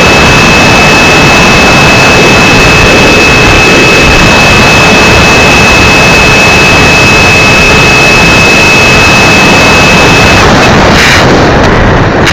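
Onboard sound of a radio-controlled model plane in flight: loud rushing wind noise on the onboard camera's microphone with a steady high motor whine. The whine stops near the end.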